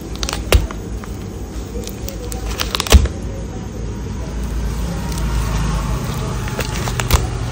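Thin plastic bag crinkling and rustling as a puppy noses and chews at it, with three sharp crackles, the loudest about three seconds in, over a low steady rumble.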